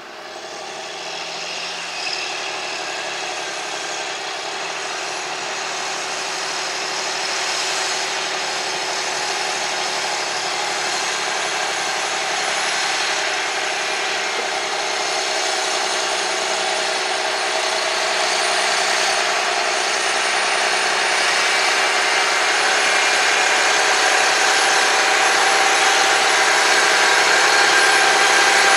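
Terra-Gator 8133 slurry applicator's diesel engine running steadily under load while it pulls its slurry injector through the soil. It grows steadily louder as the machine comes closer.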